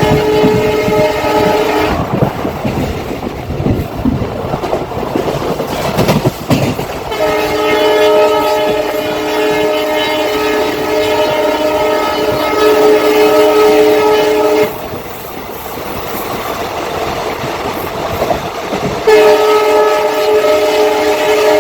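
WDG4 diesel locomotive's air horn sounding a chord of several tones in long blasts: one ends about two seconds in, another lasts about seven seconds in the middle, and a third starts near the end. Between the blasts the train's wheels clatter over the rail joints.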